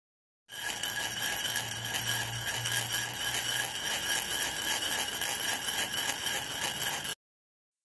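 Logo-intro sound effect: a dense, shimmering wash with a few steady high tones and a faint low hum in its first half, starting about half a second in and cutting off abruptly about a second before the end.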